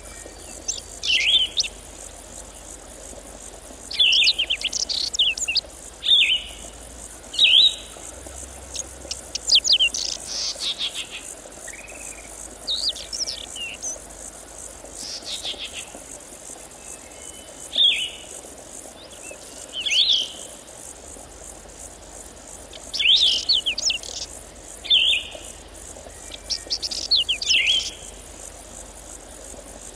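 A songbird singing about a dozen short phrases of quick high chirps, each under a second long and a couple of seconds apart, over a faint steady high hiss.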